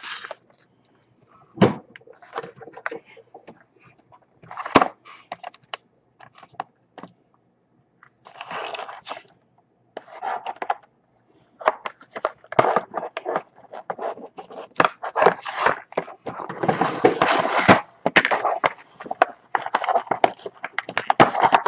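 Toy packaging being handled and torn open by hand, a Kre-O Transformers pack. Scattered rustles, scrapes and clicks at first, then in the second half a stretch of near-continuous tearing and crackling as the stubborn package is worked open.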